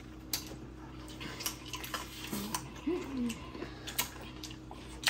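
Close-miked eating of a cheesesteak sandwich on a crusty roll: scattered sharp clicks and crunches of biting and chewing, with a brief hummed "mm" near the middle.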